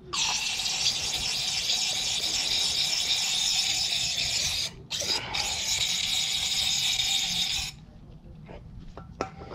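Aerosol brake parts cleaner spraying into the caliper mounting bracket's slide-pin bores: a steady hiss in two long sprays, the first about four and a half seconds, then after a short break a second of about three seconds that stops abruptly.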